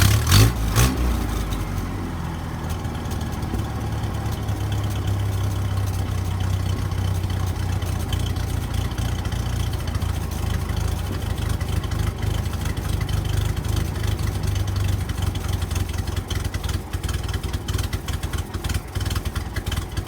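1970 International Scout 800's engine revving briefly about a second in, then idling steadily through its newly replaced muffler.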